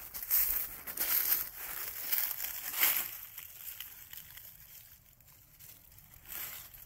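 Footsteps crunching through dry fallen leaves, in quick uneven crackles for the first few seconds, dropping away in the middle and picking up again near the end.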